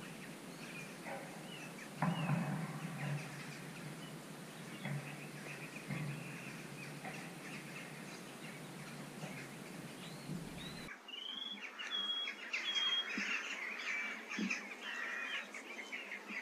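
Small birds chirping over a faint outdoor background, with a few soft knocks and rustles in the first half.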